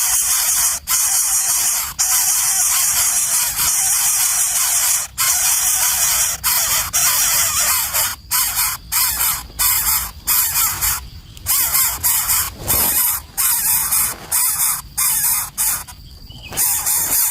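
Nestlings begging in the nest: a loud, harsh, raspy hissing chorus, broken off by many short abrupt pauses.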